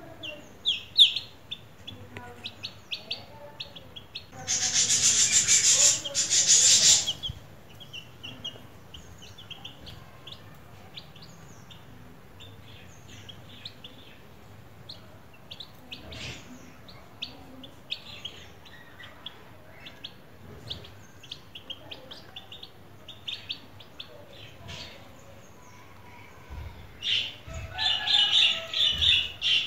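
Domestic chicken chick peeping over and over in short, high cheeps, louder and thicker near the end. About four seconds in, a loud rushing noise lasts about two and a half seconds.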